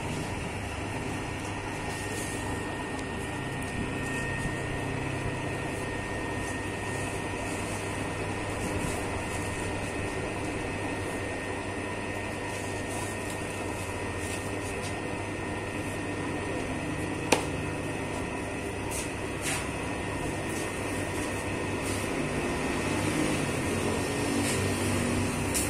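Commercial dough mixer running steadily, its motor humming with a steady high tone as the kneading arm churns flour and water in a steel bowl. A single sharp click about two-thirds of the way through.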